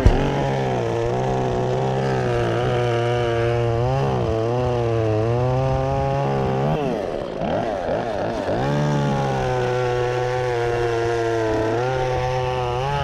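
Chainsaw running under load as it cuts through timber, the engine pitch sagging as the bar bites into the cut, most deeply about seven seconds in, then picking back up.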